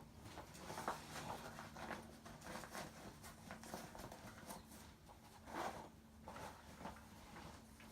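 Faint, irregular clicks, taps and rustles of objects being handled.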